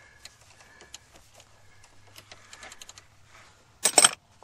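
Socket ratchet with a long extension clicking in short runs as it works a large, stubborn bolt on the underside of the van, then a loud, sharp metallic clatter near the end.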